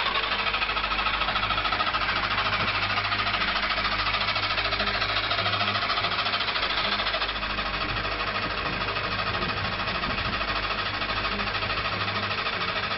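Trabant's small two-stroke twin engine running steadily with a fast, even rattling beat, a little quieter from about seven seconds in.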